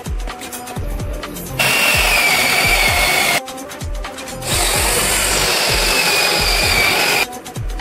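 Handheld electric power tool running in two bursts, one of about two seconds and one of about three, each with a high whine that sags slightly under load. A steady background music beat runs underneath.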